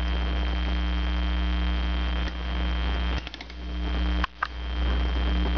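Steady electrical mains hum with its overtones, with a few faint clicks and two brief dropouts in the hum around the middle.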